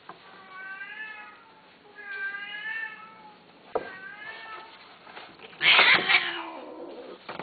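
Persian/Himalayan cats mating: three long, wavering yowls, then a loud harsh screech about five and a half seconds in that trails off into a lower cry. A sharp click comes just before the third yowl.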